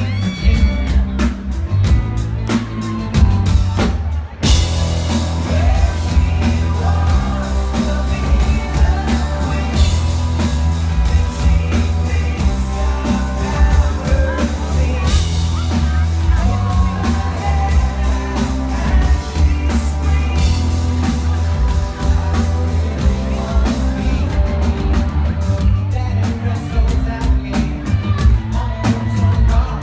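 Live pop-rock band playing, with drum kit, bass, electric guitars and a male lead singer. The band gets fuller about four seconds in and drops back to a sparser drum beat near the end.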